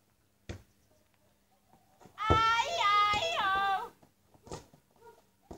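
A child's high-pitched wordless shout, held for about a second and a half with its pitch stepping up and down, about two seconds in. A short thump comes before it and a couple of short knocks after.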